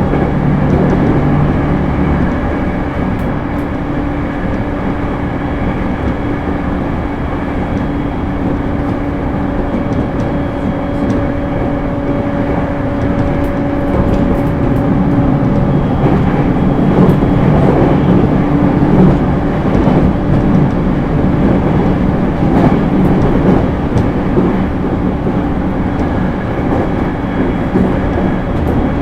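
JR East E231 series suburban electric train running, heard from inside the car: a steady rumble of wheels on rails. A few steady hums from its Hitachi IGBT inverter and traction motors come and go, and there are faint ticks from the track. The running gets a little louder about halfway through.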